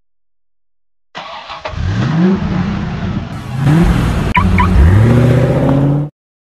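Car engine revving up in three rising pulls, the pitch climbing each time, starting and cutting off abruptly.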